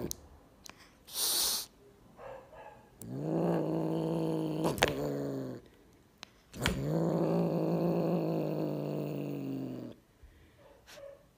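Tabby kitten with a paper toy in its mouth: a short hiss about a second in, then two long, low growls of two to three seconds each.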